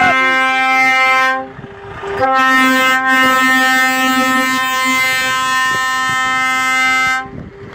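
A semi-truck's air horn sounding in long, steady blasts, broken by a short gap about a second and a half in and stopping near the end.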